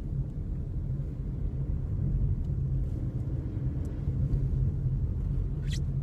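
Steady low rumble of a car, heard from inside the cabin.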